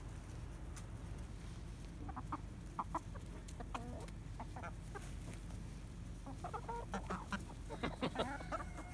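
A small flock of chickens clucking as they feed on scattered mealworms, short calls coming here and there and growing busier near the end.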